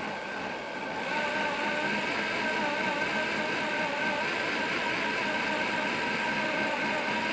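Corded 8-amp electric drill whining steadily as it turns a Wondermill Junior grain mill through a drill adapter. The mill's steel burrs are grinding peanuts into peanut butter. The drill rises to a steady speed in about the first second.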